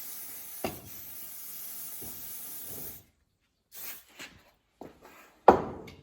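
Aerosol can of penetrating oil spraying, a steady hiss lasting about three seconds that stops abruptly. About five and a half seconds in comes a single loud knock.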